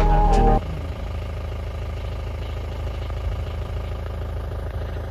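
Background music cuts off about half a second in. After that, the engine of an open safari jeep runs steadily.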